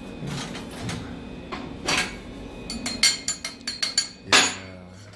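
Steel axle rod being handled and fitted through a folding hand-cart's steel frame on a steel workbench: a string of metallic clicks and clinks with short ringing, growing busier in the second half, the loudest knock near the end.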